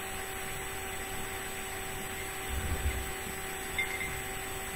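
Quiet room tone with a steady hum, and a few faint low bumps about halfway through.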